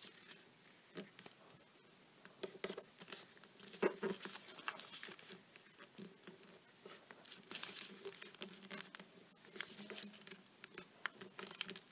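Origami paper being folded and creased by hand: faint, irregular rustles and crinkly clicks as fingers press and run along the folds, loudest about four seconds in.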